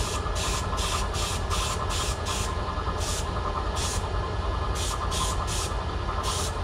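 Small air spray gun hissing in short, quick bursts, each a fraction of a second, as it lays a light coat of orange paint on lure heads. The bursts come in a fast run, then more spaced out, with a steady low hum underneath.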